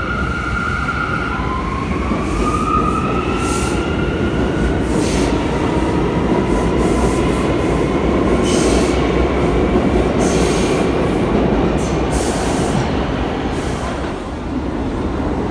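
Stainless-steel New York City subway train moving past the platform close by: a steady loud rumble of wheels on rails, with a motor whine that rises in pitch in the first few seconds and brief high-pitched bursts every second or two. The sound drops away about fourteen seconds in as the last car clears the platform.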